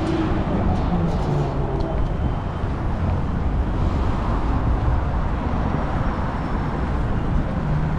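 City street traffic: a steady rumble of cars going by on the road alongside.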